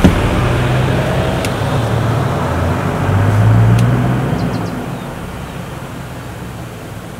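A vehicle engine idling close by: a steady low hum that swells a little about three to four seconds in, then eases and quietens. A few faint, short high chirps sound near the middle.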